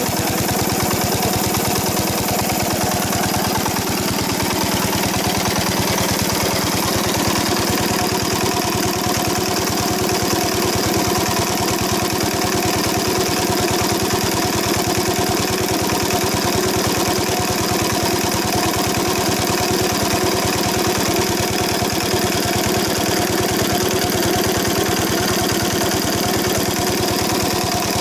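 Old single-cylinder diesel engine running steadily while it drives an irrigation water pump, with a fast, even beat, running smoothly.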